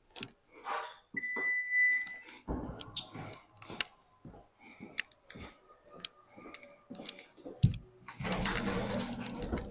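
A single steady electronic beep lasting about a second, followed by scattered clicks and knocks of things being handled, and a short burst of noise near the end.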